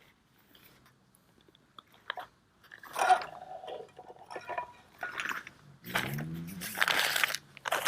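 Hands handling food packets and jars: small clicks, then crunchy rustling and scraping, busiest in the second half.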